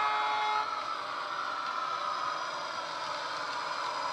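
Sound-fitted OO gauge Heljan Class 35 'Hymek' model locomotive playing its diesel engine sound from its DCC sound decoder, running steadily. A horn note from the decoder cuts off about half a second in.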